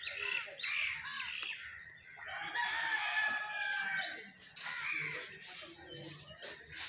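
A rooster crowing once, a long drawn-out call starting about two seconds in, with other birds calling in short arched calls before and after it.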